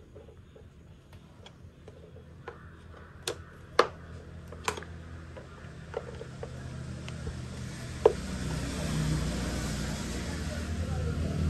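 Scattered sharp clicks and taps of hand tools on the air filter housing's cover screws, with one louder knock about eight seconds in. A steady hum and hiss swells from about halfway through and grows louder toward the end.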